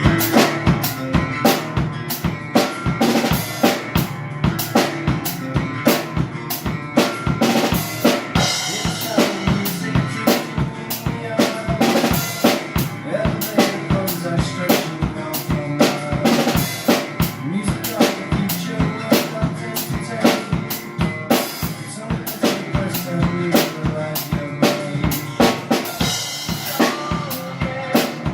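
A full drum kit playing a steady rock groove, with snare rimshots and bass drum, over the rest of the band's music.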